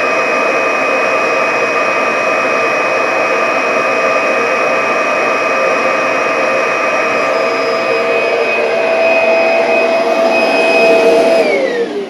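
Kirby vacuum cleaner running in blow mode, pushing air into a filter bag: a steady motor whine over rushing air. Near the end it is switched off and the whine falls in pitch as the motor spins down.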